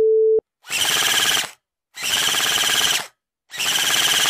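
A short steady test-tone beep, then a telephone bell ringing three times, each ring about a second long with short pauses between.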